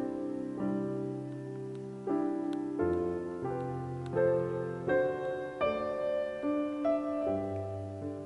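Background music played on piano: a slow melody with chords, a new note or chord struck roughly every two-thirds of a second.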